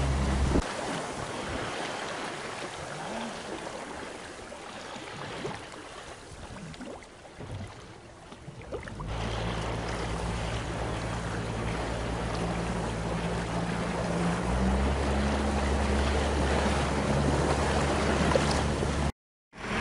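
Motorboat under way: water rushing and splashing past the hull, with the engine's steady low hum fading out near the start, coming back about halfway through, and growing louder a few seconds later. The sound drops out for a moment near the end.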